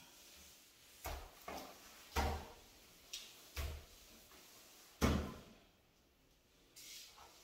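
A long-handled scrub brush knocking and brushing against tiled shower walls: six short bumps in the first five seconds, the last one the loudest.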